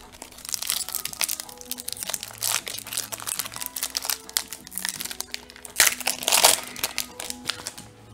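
Foil wrapper of a Magic: The Gathering Commander Legends draft booster pack crinkling and crackling as it is handled and torn open, loudest about six seconds in.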